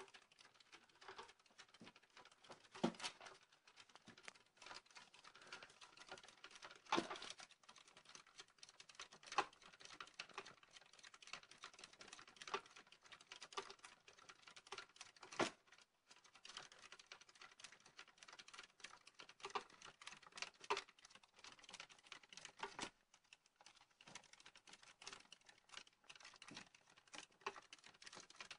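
Faint, fast, uneven pattering and clicking of an African hedgehog's feet running in a plastic exercise wheel as it spins, with an occasional louder knock from the wheel.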